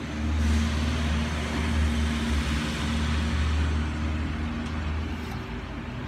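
A motor vehicle going past over a steady low engine hum; its noise swells about half a second in and fades slowly over the next few seconds.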